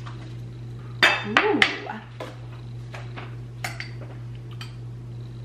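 Metal spoon clinking and scraping against a small ceramic ramekin: a quick cluster of sharp clinks about a second in, then a few lighter single taps.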